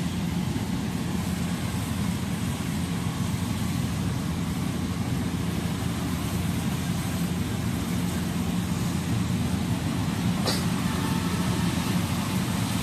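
Gatra rice combine harvester's engine running steadily as it harvests, a constant low drone, with one short click about ten and a half seconds in.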